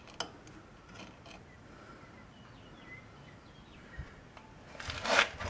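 A couple of light metallic clicks of drum-brake hardware being handled, then about five seconds in a short, louder scraping clatter as the steel brake drum is moved.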